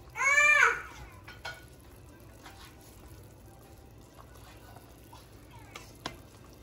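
A short, loud, high-pitched call that rises and then falls in pitch, right at the start, over the quiet sound of a pot of chicken broth simmering on the stove. A few light clicks follow, one near the end as a spoon goes into the stainless steel pot.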